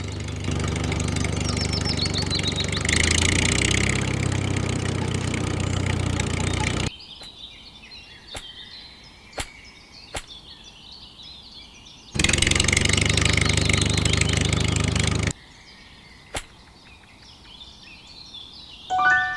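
An engine running steadily in two stretches that cut off abruptly, with birds chirping in the quieter gaps between them and a few sharp clicks.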